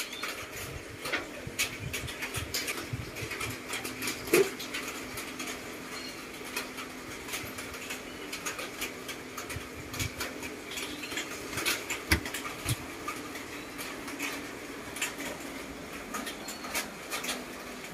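Scattered clicks, taps and rattles of monkeys climbing and moving about on wire cage mesh and a wooden frame, with two louder knocks about four and twelve seconds in, over a steady faint hum.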